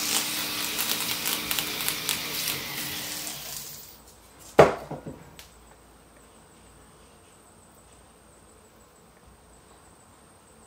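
Handheld rotary tool with a grey polishing point running against the bowl of a silver spoon, a steady high whir with a low motor hum that winds down at about three and a half seconds. About a second later comes one sharp knock with a brief ring, then only faint hiss.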